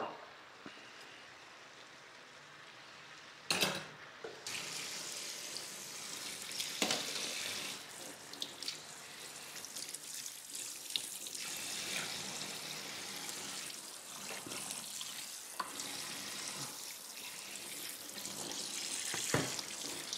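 Kitchen tap turned on about three and a half seconds in and running steadily into the sink, with a few knocks of dishes.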